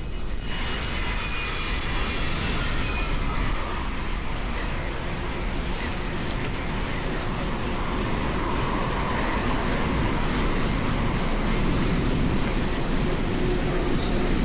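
Steady wind and road noise from riding a bicycle along a road with motor traffic passing, with a tone falling in pitch over the first few seconds.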